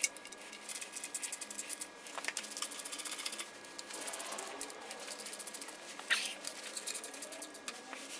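Socket ratchet clicking in quick runs of ticks, several times over, as tight nuts are worked loose, with a few sharper metal clinks between the runs.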